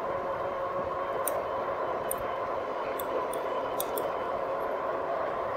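Rad Power Bikes 2018 RadMini electric bike riding at steady speed: a steady whine from its hub motor over tyre and wind noise, with a few scattered light ticks.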